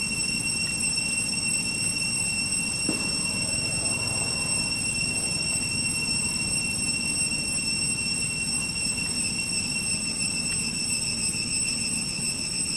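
A steady high-pitched whine with overtones, unbroken throughout, over a low rumbling background noise.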